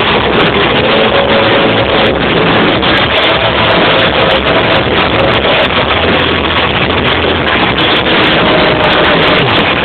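Rock band playing loud, with drum kit and electric guitar, the recording overloaded into a dense, smeared wash of sound with a few held notes showing through.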